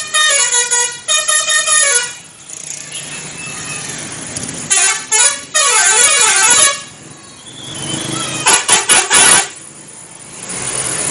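Indonesian telolet bus horn, a multi-tone musical air horn, playing a quick stepped tune, then a warbling passage of tones sliding down and up about five seconds in, and a run of short blasts near nine seconds. Engine and traffic noise in between.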